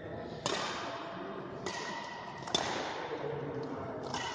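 Badminton rackets striking a shuttlecock in a rally: three sharp smacks about a second apart, each ringing briefly in a large hall.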